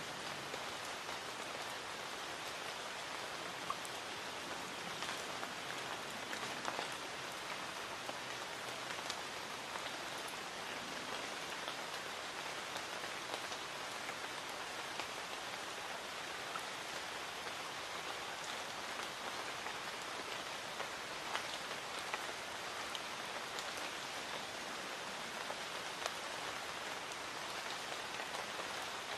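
Light rain falling steadily: an even soft hiss with scattered single drops ticking on surfaces.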